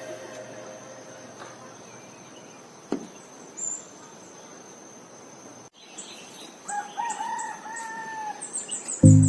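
A rooster crowing once, a held call of about a second and a half, over a low hiss with a few faint clicks. Rapid high chirps follow, and music starts just before the end.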